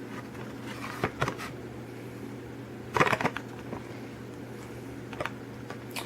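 Handling noise from die-cast toy cars being picked up and put down: short clusters of clicks and rattles about a second in and again about three seconds in, with a few lighter ticks near the end, over a low steady hum.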